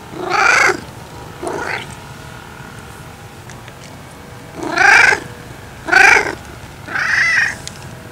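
Grey long-haired domestic cat meowing five times: two meows in the first two seconds, the second quieter, then after a pause of a few seconds three louder meows in quick succession.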